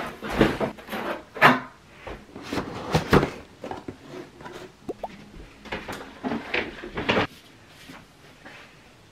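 iMac's white cardboard box and packaging inserts being handled: a run of knocks, scrapes and sliding rustles as the box is tipped and the pieces lifted out. It is busiest in the first three seconds, with more knocks around six to seven seconds, then dies down near the end.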